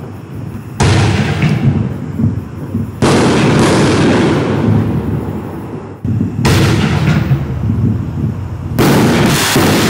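Consumer 60-gram 6-inch canister shells from a Black Cat The Patriot reload kit bursting in the air: four sharp booms about two to three seconds apart, each trailing off over a couple of seconds.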